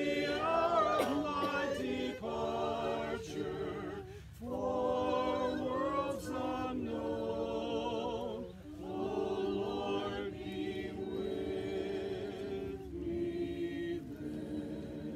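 A small group of mourners singing a hymn together unaccompanied, in sung phrases with short breaks about four seconds in and again near nine seconds.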